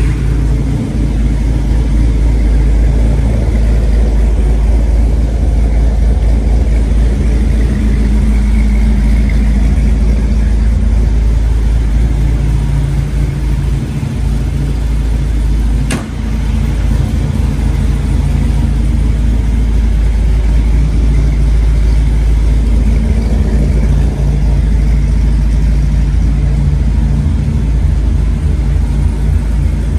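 1962 Chevrolet Nova's engine running at a steady idle after a cold start, a loud, deep rumble. One sharp click sounds about halfway through.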